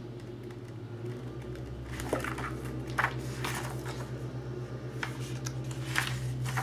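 Paper pages of a spiral-bound planner being leafed through: a few brief rustles and flicks, starting about two seconds in, over a steady low hum.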